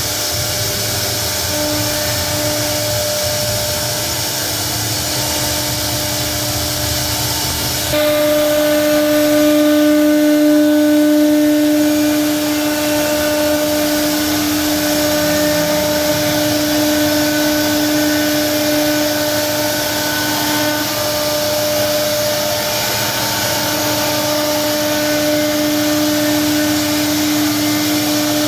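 CNC router spindle running and cutting particle board: a steady high whine over a hiss. About eight seconds in the sound changes suddenly and the whine becomes stronger.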